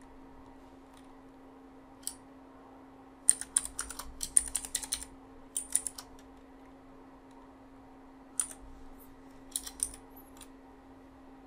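Computer keyboard typing: a single keystroke, then a quick run of keystrokes a few seconds in, then a few scattered keys near the end, over a faint steady hum.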